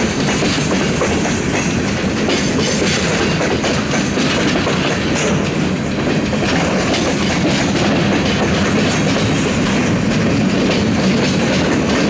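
Empty bulkhead flatcars of a freight slab train rolling past, steel wheels running over the rails in a steady, continuous clatter.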